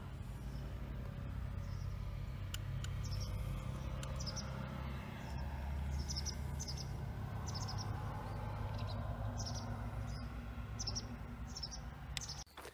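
A small songbird chirping repeatedly, short high chirps about once a second, over a steady low rumble that stops abruptly near the end.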